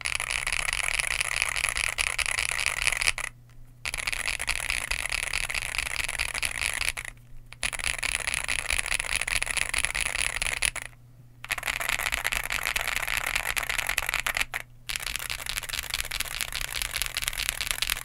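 Fast, continuous typing on a Rainy75 mechanical keyboard with stock MMD Princess tactile switches and Dreamscape dye-sub Cherry-profile PBT keycaps: a dense clatter of keystrokes in five runs, broken by four short pauses.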